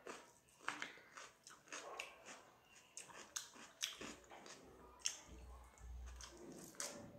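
Close-up eating sounds: irregular wet chewing and lip smacks as rice is eaten by hand, with soft clicks of fingers mixing the rice on the plate.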